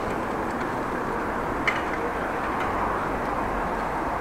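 Steady wind and tyre noise from a bicycle being ridden, heard through a handlebar-mounted action camera, with one sharp click about a second and a half in.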